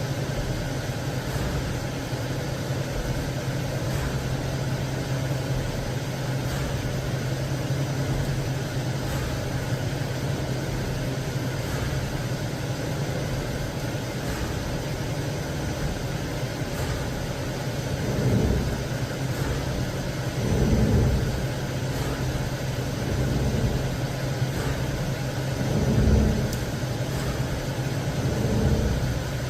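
CNC lathe running a G76 threading cycle: a steady machine hum with a few brief louder swells in the last third.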